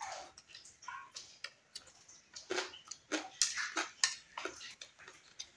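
Close-up eating sounds: chewing and mouth noises, with spoons clicking and scraping on plates, in irregular short sounds.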